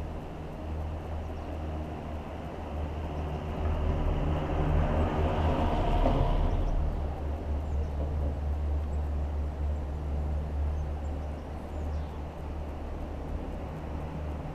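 Gondola lift cabin running along its cable, with a steady low hum and rumble. For a couple of seconds near the middle it swells louder with a rushing noise.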